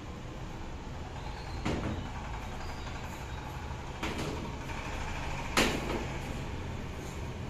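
Small metal cups and a steel mixing bowl knocking on a stainless steel counter three times, the loudest a little past halfway, over a steady low hum.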